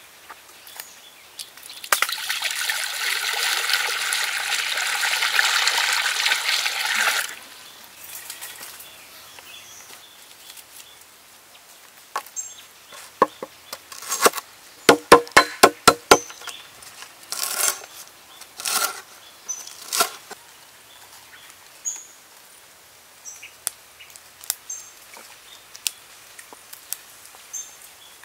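A steady hiss from the hot steel wok on the wood fire, lasting about five seconds and cutting off sharply. Later a knife chops lemongrass on a wooden board: a quick run of sharp chopping knocks, then scattered single cuts and light handling of the herbs.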